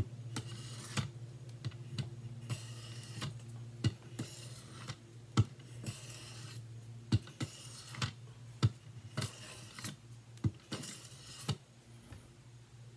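Knife blade stroked across a Work Sharp benchstone's sharpening plate, a rasping scrape about once a second with a sharp click at many strokes, stopping near the end. A steady low hum sits underneath.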